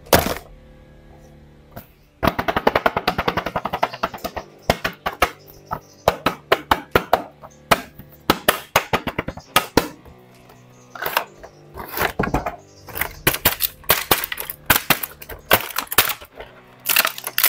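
Cardboard toy packaging and a clear plastic blister tray crinkling and crackling in the hands as they are opened: a dense run of sharp crackles and clicks starting about two seconds in. Faint background music runs underneath.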